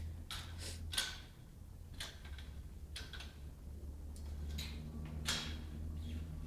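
Small child's bicycle being ridden, giving light sharp ticks about once a second over a low steady hum.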